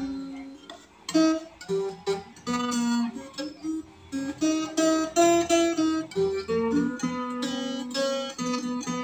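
Acoustic guitar fingerpicked: a melody of single plucked notes over low bass notes, each note ringing and then fading.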